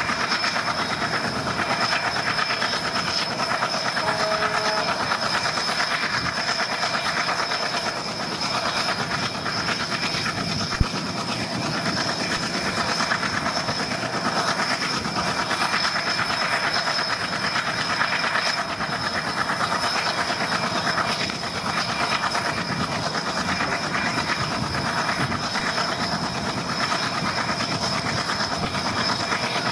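Train running along the track, heard from on board: a steady rumble and rattle of wheels on rails with a constant thin high whine. There is one sharp click about eleven seconds in.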